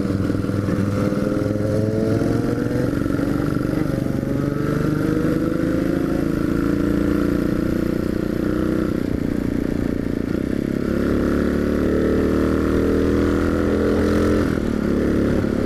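Yamaha XT250's single-cylinder four-stroke engine running under way, freshly rebuilt. Its note rises steadily as it accelerates over the first several seconds, then holds. A fuller, louder stretch follows in the second half and drops away near the end.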